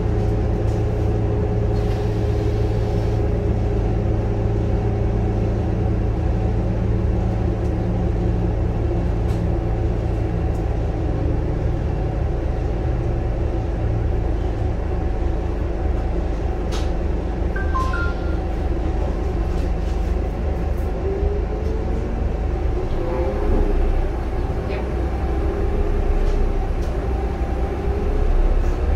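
Scania K230UB bus's DC9 inline five-cylinder turbodiesel idling, heard from inside the passenger cabin, then the engine note rising and growing louder as the bus pulls away in the second half. A short two-note electronic beep a little past halfway.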